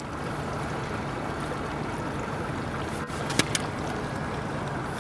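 Steady low hum and rush of a boat under way on the water, with a couple of light clicks about three and a half seconds in.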